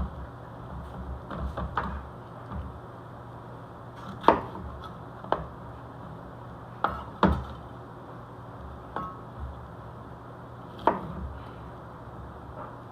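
A knife and raw cauliflower florets knocking and clicking on a cutting board and dish as the cauliflower is cut and broken apart. The knocks come at irregular intervals, about half a dozen sharp ones, one followed by a brief ring about nine seconds in, over a steady low hum.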